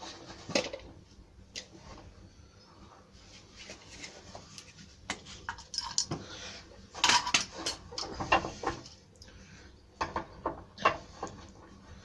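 Irregular metallic clinks and knocks of hand tools and hardware being handled and set down on wood, bunched into a busier flurry in the middle of the stretch.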